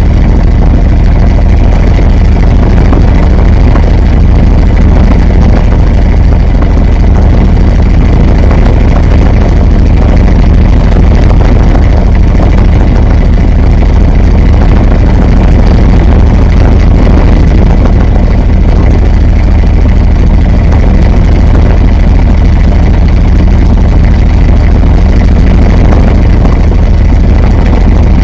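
Washing machine running, heard from inside the drum: a loud, steady rumble with a deep drone underneath.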